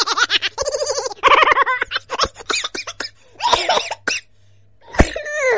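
A high-pitched voice laughing and exclaiming in short bursts, ending in a falling cry near the end.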